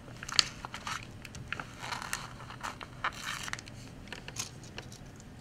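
A printed paper decal sheet rustling and crinkling under hands in short irregular bursts, with a few light taps as a small plastic LEGO car is handled on the table.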